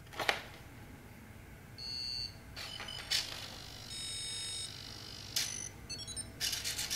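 Signal R2 model-rocket flight computer booting up, its buzzer sounding startup beeps: a short high beep about two seconds in, a longer tone about four seconds in, then a quick run of short beeps at changing pitch. Clicks and rubbing come from the airframe tube being handled.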